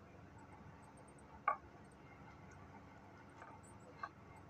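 Mashing boiled potatoes with a flat plastic tool in a glass baking dish. There is one sharp tick about a second and a half in, as the tool knocks against the glass, and two fainter ticks near the end.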